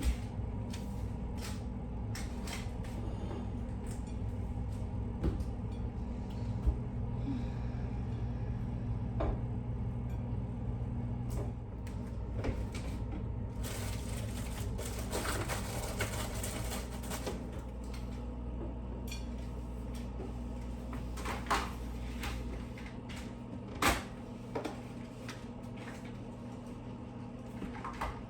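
Kitchen handling sounds: cupboard doors and items knocked and set down in scattered sharp clunks, over a steady appliance hum that cuts off about three-quarters of the way through. A few seconds of hiss fall in the middle.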